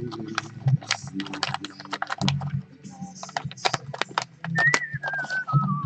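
Rapid small clicks and taps of parts, screws and wires being handled in a metal rack-mount chassis during assembly. Near the end a single whistled note glides downward.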